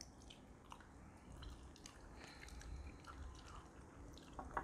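Near silence with faint scattered small clicks and ticks, and one sharper click just before the end.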